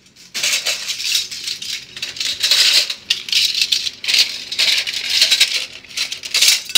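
White disposable plastic spoons rattling and clicking against each other and a clear plastic cup as a handful is shaken and sorted into it: a dense, continuous clatter that cuts off suddenly at the end.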